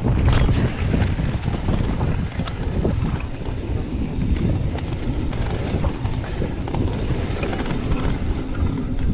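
Wind buffeting the camera microphone over the rumble of mountain bike tyres on a dirt trail, with scattered clicks and rattles from the bike during the descent.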